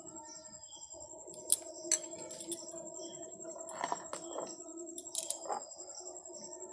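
A metal spoon stirring egg mixture in a ceramic bowl, clinking and scraping against the bowl in a few sharp clicks spread through the stirring.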